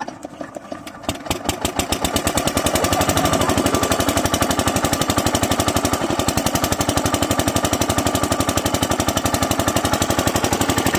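A Topland 5 hp single-cylinder diesel pump-set engine catches after hand cranking. About a second in it starts firing, picks up speed, and by about two and a half seconds it is running with a steady rapid exhaust beat.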